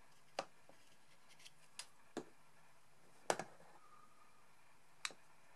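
Scattered light clicks and taps of small parts being handled while a steel bearing with dome nuts is glued into a wooden holder: about six short ticks, the loudest a double tap a little past halfway.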